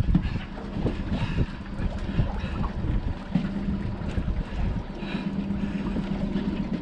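Wind gusting on the microphone over a steady low hum, with scattered knocks and bumps in an aluminium boat.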